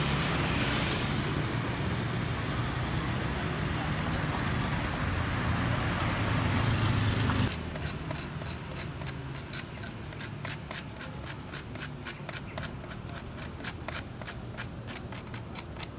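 Street traffic with a motorbike passing, a steady noisy rumble that cuts off suddenly about halfway through. Then a quieter stretch of quick, rhythmic scraping strokes, several a second.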